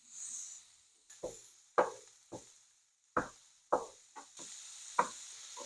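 A utensil knocks against a frying pan about seven times while the hamburger is being browned and broken up. Steady sizzling of the meat sets in about four seconds in.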